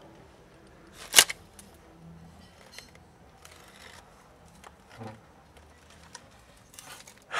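Handling noise: a few sharp crackles and clicks over a low background, the loudest about a second in and another cluster near the end.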